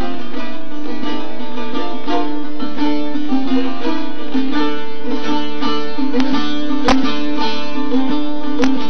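Instrumental Turkish folk music on a plucked long-necked lute, a bağlama (saz): a quick picked melody over a steady drone note, with a few sharp taps in the last few seconds.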